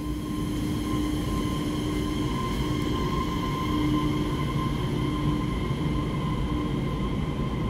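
EMU3000 electric multiple unit pulling slowly out of the station: a steady rumble from its wheels with a steady high whine over it.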